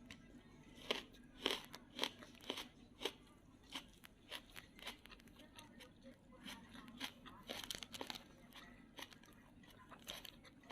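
Close-up chewing and biting of crunchy food, a run of crisp crunches about a second in and again about seven seconds in.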